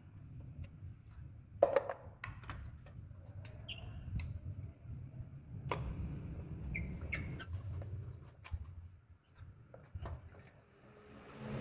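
Scattered clicks and light metallic knocks of a spark plug socket wrench working on the engine's spark plugs, with a couple of brief squeaks, over a low steady hum.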